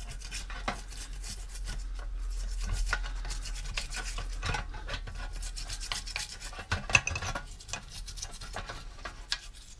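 Small metal tool scraping and scratching in the jet passage of a two-stroke carburetor, with small clicks and one sharper click about seven seconds in. The passage is clogged with old fuel deposits that are being dug out to expose the blocked main jet. A faint low hum runs underneath.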